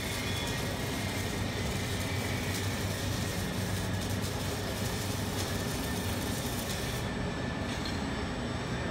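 Electric gear motor of a welding positioner running steadily, driving the worktable's rotation through its gearbox: an even low hum.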